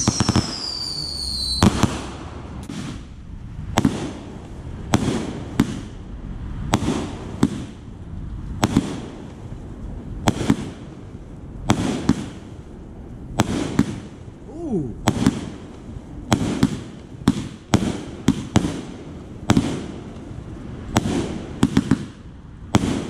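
Aerial consumer fireworks going off: a rapid, irregular string of sharp bangs, roughly one to two a second, each trailing a low rumble. Several falling whistles sound together near the start.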